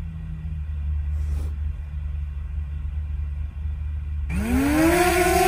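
Low wind rumble on the microphone, then about four seconds in a DJI Mavic Air's motors spin up for takeoff: a sudden whine that rises in pitch and then settles, with propeller hiss.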